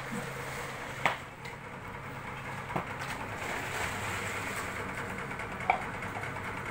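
A motor or engine running steadily with a low hum, with three sharp knocks: about a second in, near the middle and near the end.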